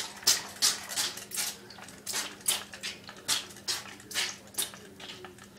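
Trigger spray bottle being squeezed over and over, a quick run of short misting hisses at about three a second, wetting a paper towel.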